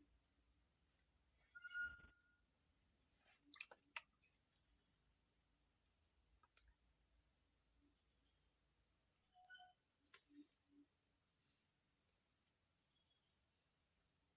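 Steady high-pitched insect chorus, with a few faint clicks and short chirps scattered through it.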